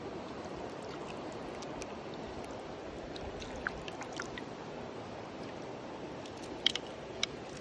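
Shallow mountain stream running steadily over stones, close to the water. A few short sharp splashes come as a landing net is dipped in to let a fish go, the loudest two near the end.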